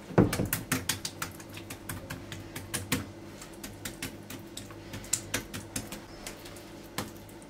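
Fingers pressing and smoothing raw minced-meat filling over thin, dry yufka sheets on a wooden board: irregular light taps, crinkles and clicks, several a second, over a faint steady low hum.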